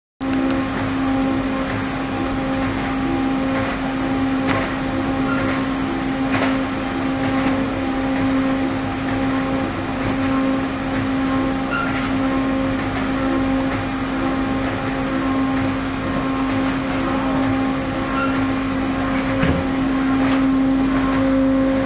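Single facer corrugated board production line running with its stacker: a steady machine hum carrying one strong constant tone, with a few light knocks scattered through.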